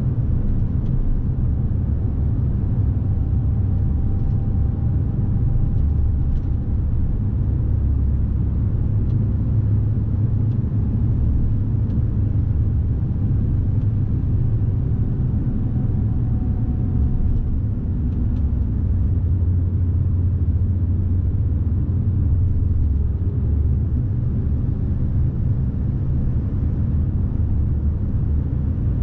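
Scania S520's V8 diesel engine and road noise, a steady low rumble as the laden lorry drives along at an even pace.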